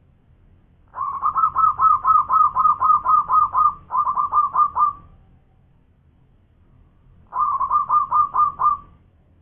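Zebra dove (perkutut) singing its staccato cooing song, about four quick notes a second. One long bout lasts about four seconds and a shorter bout follows near the end.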